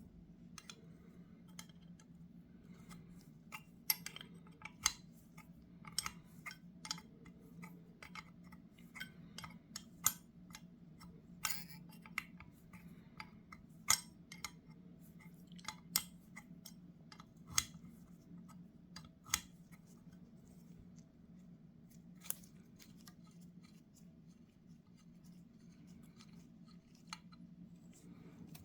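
Irregular sharp clicks and clinks of small metal carburetor parts and hand tools being handled during disassembly of a Zenith 35/40 INAT carburetor float bowl, over a steady low hum.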